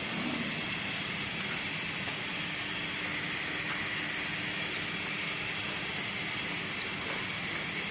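Steady hiss of a foundry workshop's background noise with a faint low hum underneath; no bell is struck.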